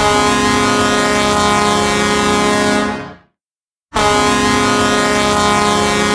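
Hockey goal horn sounding two long, steady blasts, each about three seconds, with a short silence between them.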